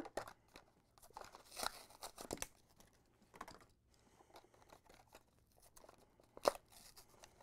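A Hot Wheels blister pack being torn open by hand: the plastic bubble crinkling and the cardboard card tearing, in quiet scattered rustles and snaps, with one sharper snap near the end.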